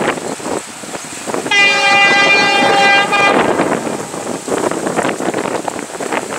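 WDP4D diesel locomotive's horn sounding one steady blast of just under two seconds, starting about a second and a half in, over wind buffeting the microphone.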